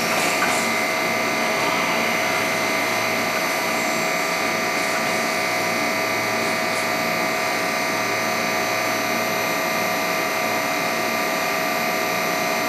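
Container flat wagons of a freight train rolling on the rails: a steady, unbroken running noise with a high whine held throughout.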